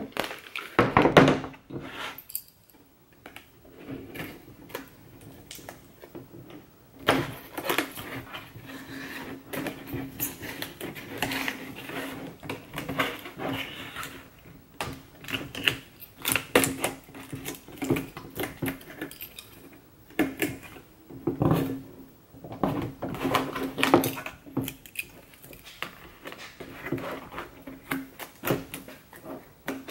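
Plastic centre-console trim pieces of an Infiniti G35 being handled, turned over and set down on a wooden workbench, giving irregular clicks, taps and rattles. A steady low hum runs underneath.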